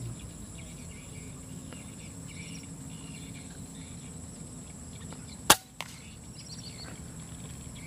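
A single air rifle shot, a sharp crack about five and a half seconds in, followed a moment later by a fainter click. Faint insect and bird chirps go on in the background.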